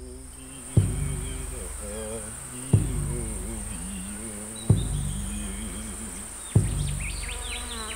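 Flies buzzing with a wavering hum over a steady high insect drone. A deep drum beat lands about every two seconds and is the loudest sound. A few bird chirps come in near the end.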